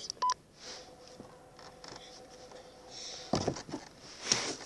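A phone being handled while a call is placed: a short beep near the start, a faint steady tone through the middle, then a few clattering knocks in the second half.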